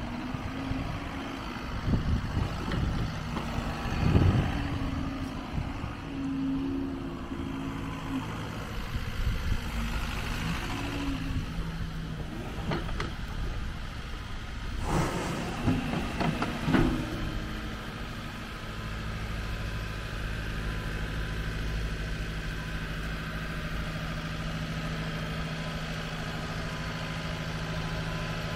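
JCB 86C-1 tracked excavator's diesel engine running while the boom, bucket and slew are worked, its note rising and falling in the first half, with a couple of knocks about four and fifteen seconds in. For the last ten seconds it runs steadily.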